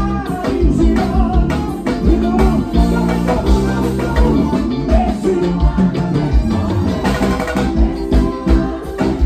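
Live band playing praise music, with drums keeping a steady beat under electric guitar and keyboards and a singer's voice over them.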